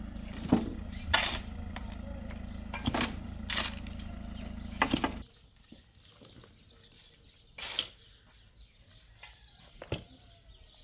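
Shovels and a pick striking and scraping stony soil, with stones clattering into a metal wheelbarrow: five or six sharp strikes over a steady low mechanical hum. About five seconds in, all of this stops suddenly, leaving a quiet background with a couple of faint knocks.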